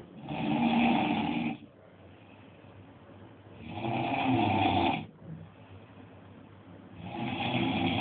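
A sleeping person snoring loudly: three long snores, each about a second and a half, coming about every three and a half seconds.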